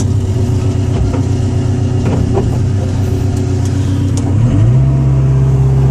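Komatsu PC60-7 excavator's diesel engine running steadily, with a few light clicks; about four seconds in the engine speed rises and holds higher.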